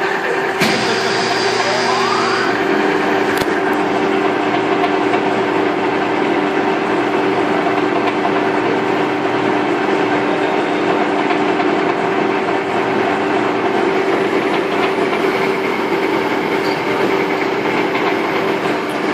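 Rebuilt No. 3 centerless grinder running under power: a steady mechanical hum with a held low tone. A click about half a second in, then a short rising whine around two seconds in as something comes up to speed.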